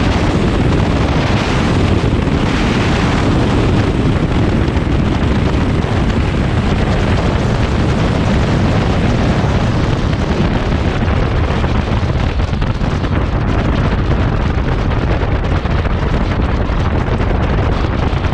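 Bücker Jungmann biplane's piston engine and propeller running steadily while it rolls along the runway, with heavy wind buffeting on the microphone. The hiss eases somewhat after about ten seconds.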